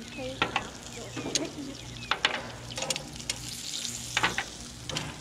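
Metal tongs clicking and clam shells clattering as roasted clams are picked off a gas grill and set onto a plastic tray: a dozen or so irregular sharp clicks over the steady sizzle of the hot grill.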